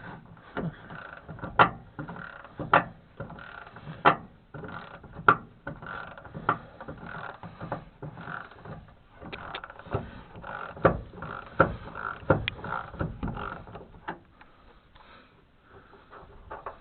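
Hand ratchet wrench worked back and forth on a bolt, its pawl rattling, with a sharper click about once a second. The strokes stop about fourteen seconds in.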